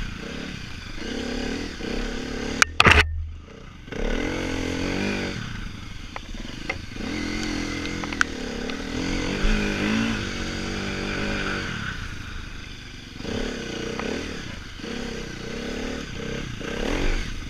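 Dirt bike engine revving up and down as the throttle is opened and closed. A loud knock comes about three seconds in, followed by a brief dip in the engine sound.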